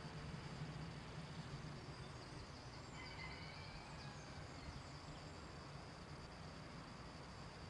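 Faint outdoor ambience: a steady high insect chirring over a low steady hum, with a few faint bird chirps about three to four seconds in.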